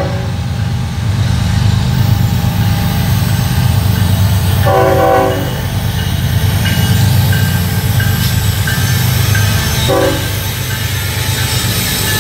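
Freight train passing close by, led by Norfolk Southern's Norfolk & Western heritage locomotive 8103, a GE ES44AC diesel, whose engine runs with a loud low rumble throughout. The air horn sounds a blast of about a second some four and a half seconds in and a short blast about ten seconds in, sounding for the grade crossing.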